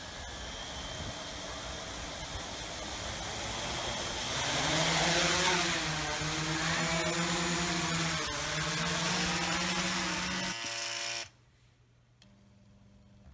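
Custom-built drilling quadcopter running: a rushing motor-and-rotor noise builds, a steady pitched motor hum joins about four seconds in, and the whole sound cuts off suddenly near the end.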